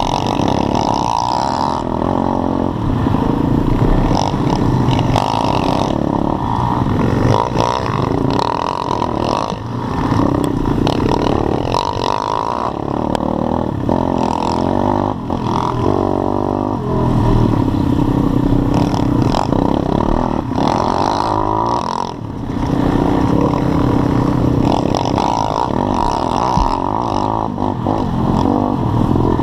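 Pit bike's small single-cylinder four-stroke engine ridden hard on a dirt trail, heard close up from the bike itself, its revs rising and falling through the whole stretch, with a brief dip about two-thirds of the way through.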